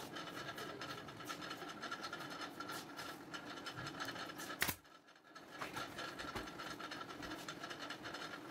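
Hands rubbing and tucking upholstery fabric over a sofa frame, over a steady mechanical hum, with one sharp click about halfway through.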